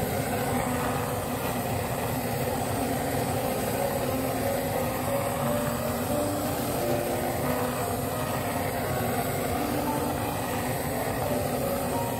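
Zucchini pancake frying in oil in a pan, sizzling steadily.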